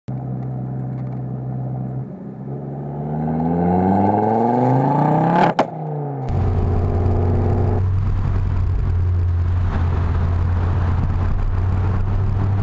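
Ford Focus RS Stage 1 exhaust idling, then revved: the pitch climbs for a few seconds to a sharp crack at the top and falls back. Then an abrupt change to a steady engine drone with road noise while driving.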